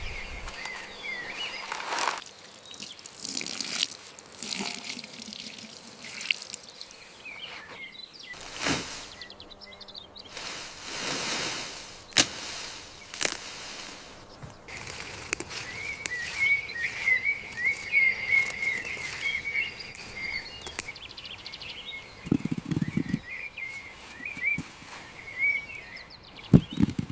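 Birds chirping in quick, repeated short notes, with scattered knocks and clatter. A brief rushing noise swells and fades about eleven seconds in.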